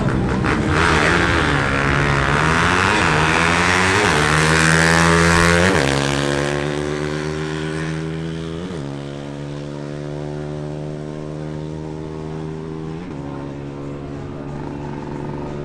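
Bajaj Pulsar NS200's single-cylinder engine at full throttle on a quarter-mile drag run. Its pitch climbs through each gear and drops sharply at each upshift, with several shifts that come further apart in the higher gears. The sound grows fainter after about six seconds as the bike pulls away.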